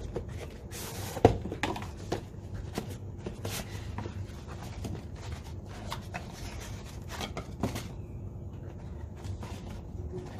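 Cardboard retail box of a DJI Spark remote controller being opened by hand: a brief sliding scrape about a second in ending in a sharp knock, then scattered light taps and rustling handling noise as the inner box is opened and the controller lifted out.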